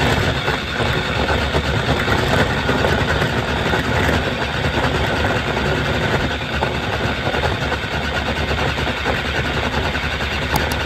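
Countertop blender motor running steadily, blending cooked plantains with papaya, strawberries and milk into a smoothie.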